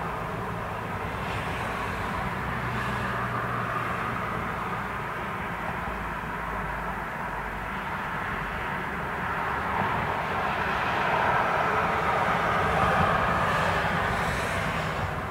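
Outdoor street ambience: a steady rushing hum of distant traffic. A vehicle passes more closely and louder about two-thirds of the way through.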